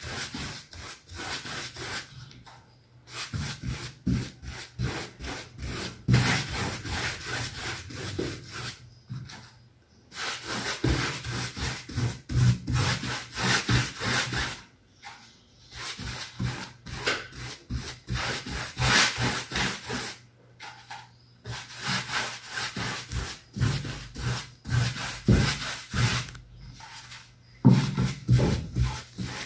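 Paintbrush scrubbing white primer into cotton canvas stretched on a wooden board, in quick back-and-forth strokes with short pauses every few seconds. This is the second coat of a ground (imprimatura) being brushed on.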